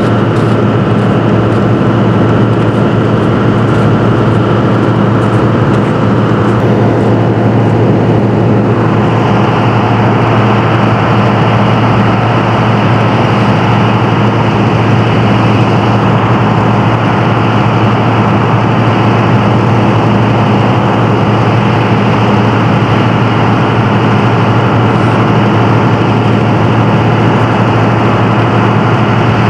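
An engine running steadily at idle close by, a constant low hum with a noisy wash above it.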